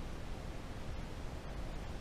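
Steady room noise: an even hiss with a low rumble underneath, and no distinct events.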